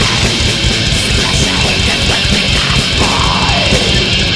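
Black metal music from a lo-fi 1999 demo: dense distorted electric guitars over fast, driving drums, loud and unbroken.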